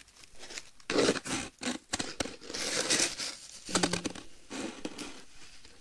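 Close-up crinkling, rustling and scratching of objects being handled, with many sharp clicks and taps in irregular clusters.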